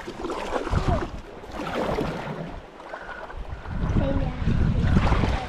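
Kayak moving on a river: uneven water noise, with wind rumbling on the microphone, heaviest in the last second and a half.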